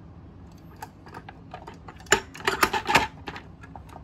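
Hard plastic parts of a Kuvings C7000 slow juicer clicking and knocking as the auger is fitted down into the strainer and juicing drum. The clicks come in an irregular run and are densest about two to three seconds in.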